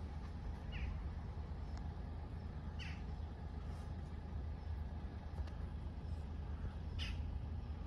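Steady wind rumble buffeting the microphone, with a bird chirping briefly three times.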